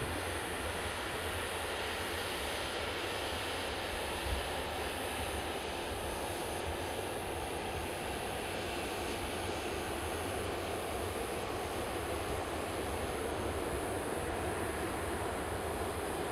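CFM56 turbofan engines of a Boeing 737-900 running with a steady jet rush as the airliner rolls along the runway, getting slightly louder near the end.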